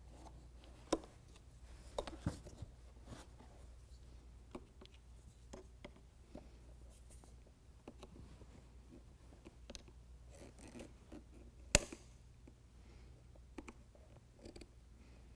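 Screwdriver and pry tool scraping and levering at the plastic tabs of a tag light housing in plastic bumper trim, with scattered sharp plastic clicks; the loudest, a single sharp click, comes about twelve seconds in.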